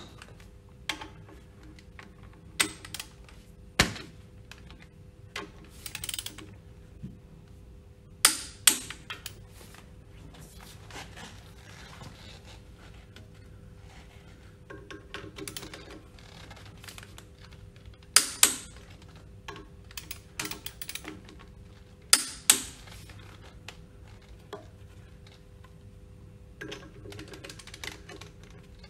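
Hand ratchet wrench clicking in short runs as the screws of a pump's split coupling are driven in, broken by sharp metal clacks of the tools against the housing, the loudest coming in pairs about a third of a second apart. A faint steady hum lies underneath.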